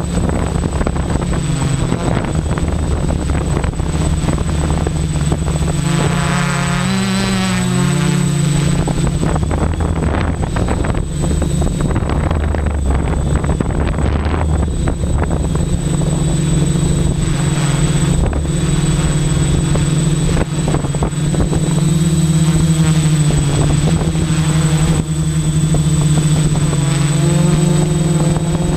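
XAircraft Super X quadcopter's electric motors and propellers humming loudly from on board, the pitch shifting and wavering as the motors change speed, over a steady high-pitched whine.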